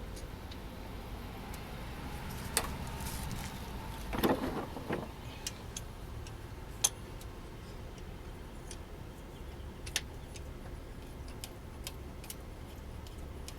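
Scattered metallic clicks and clinks of hand tools (socket, extension and wrench) being handled while a sensor is threaded and tightened, with a short cluster of clinking about four seconds in, over a low steady hum.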